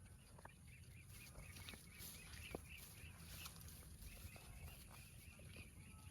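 Faint outdoor farm ambience: a low steady rumble under a quick, continuous run of faint high chirps, with no cow mooing.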